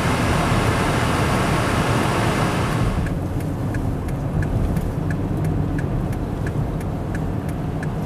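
Car cabin noise while driving slowly on a snow-covered highway: a steady engine and road rumble, with a broad rushing hiss that drops away suddenly about three seconds in. After that, a light regular ticking at about one and a half ticks a second comes through, the car's hazard-light flasher.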